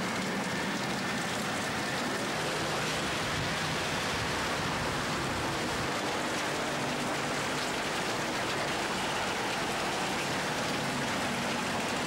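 Heavy typhoon rain pouring down on a street, a steady hiss.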